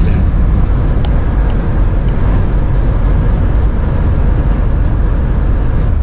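Steady low rumble inside the cab of a motorhome driving on a motorway: engine and road noise that holds even throughout.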